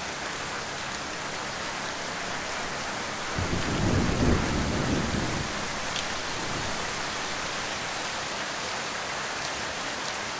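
Heavy rain falling steadily as an even hiss. A low roll of thunder comes in about three seconds in and fades away over a few seconds.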